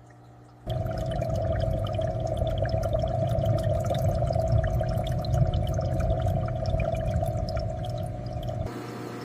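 Aquarium water bubbling and trickling, full of small pops and drips. It starts abruptly about a second in and falls back to a softer, steadier hiss near the end.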